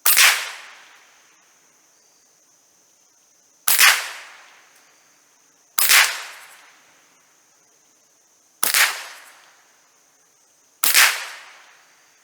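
Savage Model 64 semi-automatic .22 LR rifle firing five single shots at an uneven pace, each a sharp crack with a short echoing tail.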